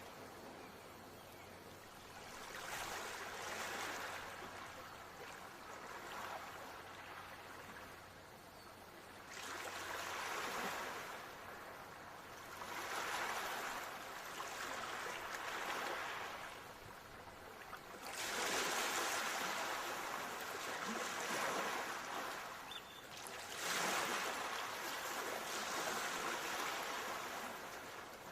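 Ocean waves washing onto a shore, surging and falling back in swells every four to six seconds.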